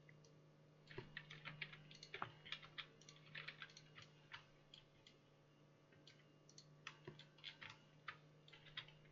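Faint clicking of a computer keyboard and mouse, in scattered quick runs of keystrokes and clicks, over a low steady electrical hum.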